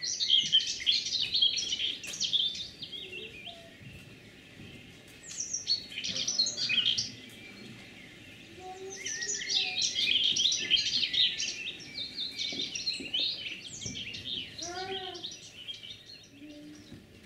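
Recorded birdsong: dense, fast high chirping and trilling in three spells with short lulls between, and one short pitched call that rises and falls near the end.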